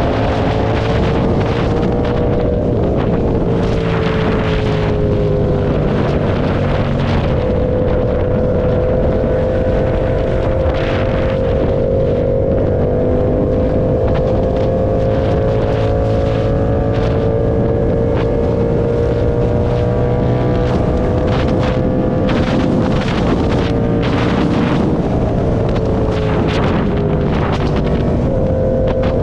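Motorcycle engine running at fairly steady riding revs, its pitch rising and falling gently a few times as the throttle changes, with wind buffeting the microphone.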